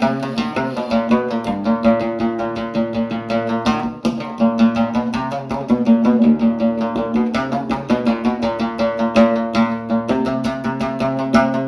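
Instrumental music: a plucked string instrument playing quick runs of notes over a steady held low note.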